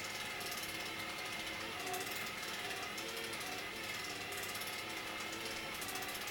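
Destination roll sign from a 211 series train winding its film from one destination to the next: its winding mechanism keeps up a steady mechanical whirr with fine rapid clicking.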